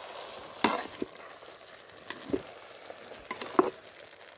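Flat metal spatula stirring and scraping nearly cooked rice in chicken broth inside an aluminium pot, with several sharp clinks of metal on the pot over a steady hiss.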